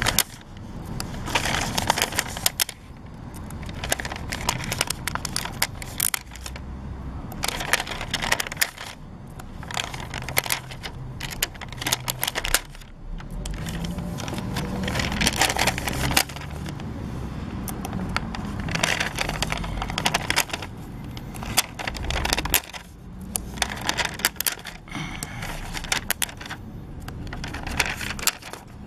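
Stickers being peeled off a clear plastic backing sheet and pressed onto paper: crinkling and crackling of the plastic sheet, paper rustling and many small clicks, coming in uneven bursts.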